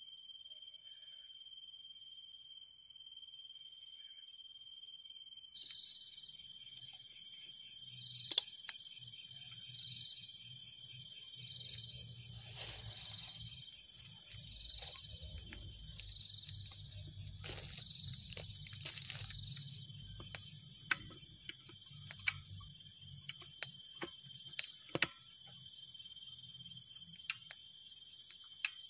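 Night chorus of crickets and other insects, a steady high trilling, with a wood campfire crackling and giving sharp pops now and then from about eight seconds in.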